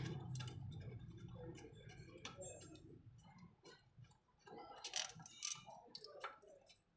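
Faint metallic clicking and tapping of a car's clutch cylinder and its line fitting being handled and fitted by hand, with a few louder clicks about five seconds in.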